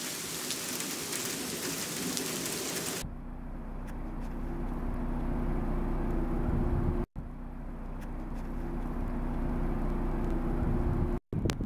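Freezing rain falling, a steady even hiss, for the first three seconds. Then an engine running steadily, a low hum with a rumble under it, swelling slightly in loudness twice, with brief dropouts about seven seconds in and near the end.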